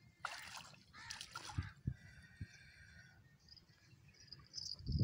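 Water splashing twice in quick succession as a landing net is dipped into the shallows to scoop up a hooked carp. A faint high tone and a few soft knocks follow.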